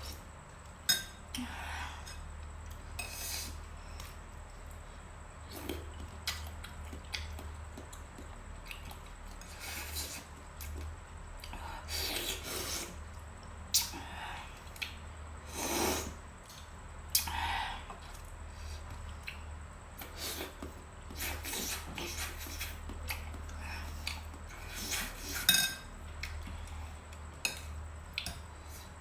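Mukbang eating sounds: cutlery clicking against a bowl or plate, with scattered short mouth and chewing noises at irregular intervals over a steady low hum.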